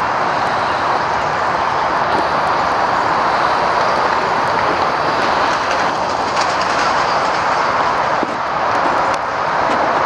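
A steady, loud rushing noise with no clear pitch, and a few faint ticks over it.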